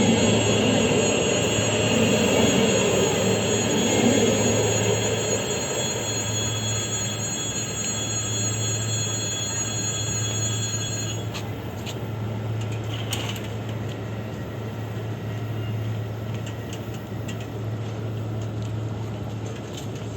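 EG2Tv Ivolga electric train running, with several steady high-pitched tones that stop abruptly about eleven seconds in. A steady low hum runs underneath, and the rumble is heaviest in the first few seconds and slowly fades.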